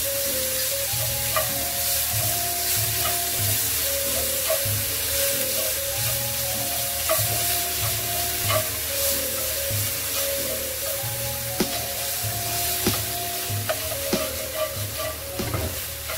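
Minced meat and spring onion sizzling in a hot nonstick wok while a spatula stirs and scrapes through it, with scattered clicks of the spatula against the pan. Light background music with a melody plays underneath.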